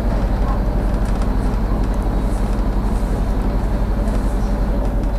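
Inside a MAZ diesel city bus under way: the engine drones low and steady with a fast, even throb.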